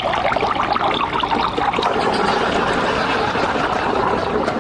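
Water trickling and splashing steadily.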